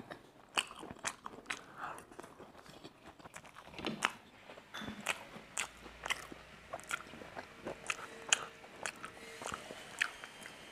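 Close-miked chewing of a mouthful of food, with many short wet mouth clicks and smacks. Near the end, a sip of water from a glass.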